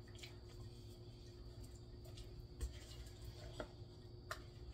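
Faint stirring of a thick pecan and egg filling with a silicone spatula in a stainless steel saucepan, with a few light clicks and knocks of the spatula against the pot in the second half.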